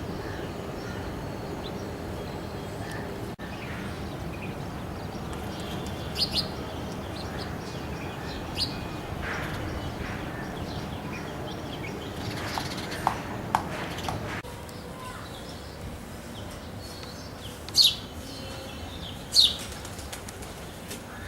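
House sparrows chirping: short, sharp chirps come scattered and irregular, the two loudest near the end, over a steady low background hum.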